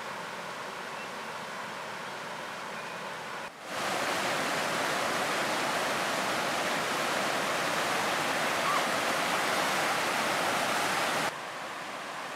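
Swollen floodwater rushing and churning in a steady roar. It is moderate at first, much louder and fuller from about three and a half seconds in, and drops back to the quieter rush near the end.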